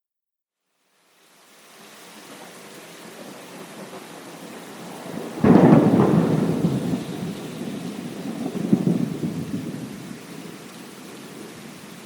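Thunderstorm: after about a second of silence, rain fades in, then a sudden thunderclap strikes about five and a half seconds in and rolls on as rumbling, swelling again a few seconds later before dying away under the steady rain.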